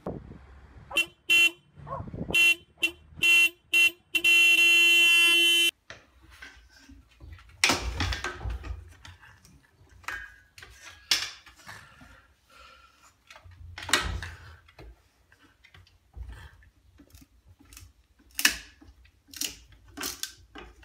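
A car horn sounding in about seven short toots, then one long blast of about a second and a half, pressed by a dog sitting in the driver's seat. Scattered knocks and thumps follow.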